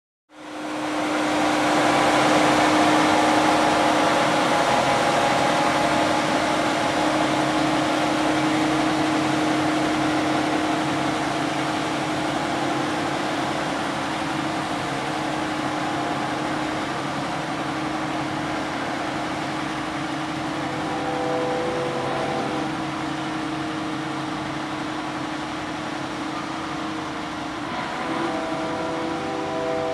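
Diesel engine of a large tracked tractor running steadily under load while it pulls an ejector scraper cutting through soft, swampy ground. The sound fades in over the first second, is loudest soon after and eases a little later on as the machine moves away.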